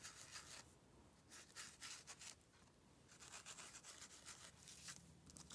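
Faint rubbing of a foam ink sponge dabbed lightly over a decorative stencil mask on cardstock, in a few spells of quick strokes with quiet gaps between.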